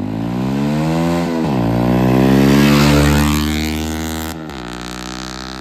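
Bajaj Pulsar NS125's single-cylinder engine through an aftermarket Akrapovic-style exhaust, accelerating past. The revs climb, drop at a gear change about a second and a half in, climb again to the loudest point as the bike passes, then fall away.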